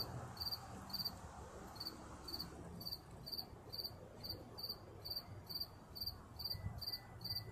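A loud cricket chirping in steady rhythm, a little over two short, high-pitched chirps a second, each chirp a quick pulsed trill.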